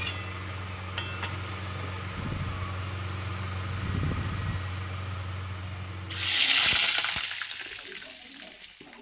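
Hot oil in a kadai bursting into a loud sizzle about six seconds in as the bacha fish go into it, the hiss then fading away over the next three seconds. Before it, a low steady hum.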